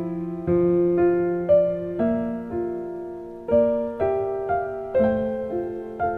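Soft piano background music: notes and chords struck about once or twice a second, each ringing and fading away.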